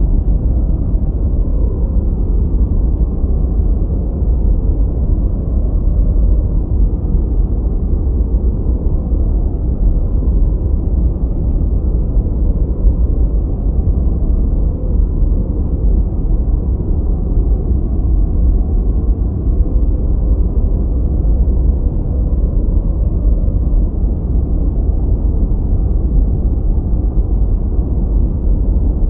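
Steady, deep rushing noise track of the kind sold as white noise for study or sleep, its sound weighted to the bass and dull, with nothing bright or hissing on top. It runs on evenly, without change or events.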